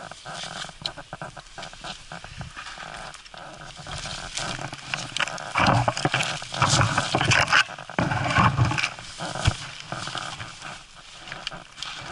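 Skis ploughing through deep powder snow among brush, with branches scraping and snapping against the camera and skier; an uneven rushing, crackling sound, loudest and roughest in the middle where the skier pushes through a thick branch.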